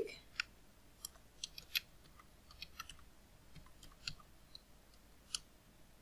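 Computer keyboard typing: a dozen or so light, irregularly spaced keystroke clicks as a short word is typed out.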